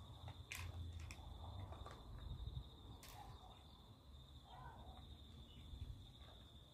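Quiet outdoor ambience: a steady, high insect trill with a faint low rumble underneath, and a few soft clicks in the first three seconds.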